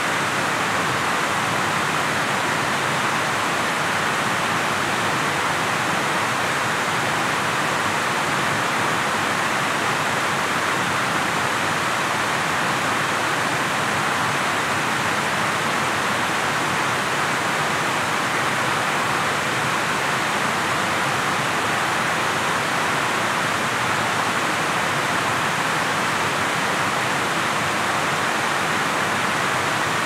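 Steady rush of flowing river water, an even noise that stays at one level throughout.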